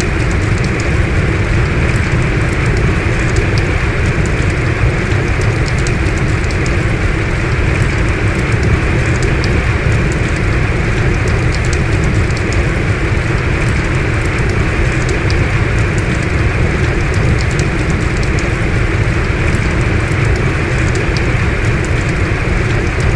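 Heavy rain falling steadily, a dense even hiss of drops with faint scattered patters on top.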